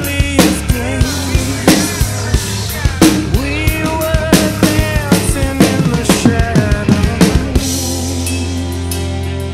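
Acoustic drum kit played with sticks along to a recorded song with singing: kick, snare and cymbal hits over the track. About three-quarters of the way through the drumming drops away while the song's held chords continue.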